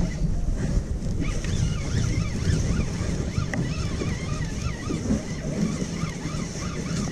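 Wind buffeting the microphone, with the repeating whir of a spinning fishing reel being cranked to bring in a hooked fish.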